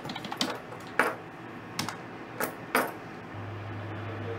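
Keys of a desk calculator being tapped: scattered, irregular clicks. A steady low hum sets in a little over three seconds in.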